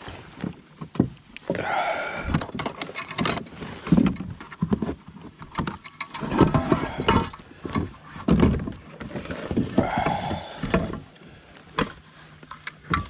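Irregular knocks, bumps and rustling in a fishing kayak as a caught bass is handled and laid on a measuring board.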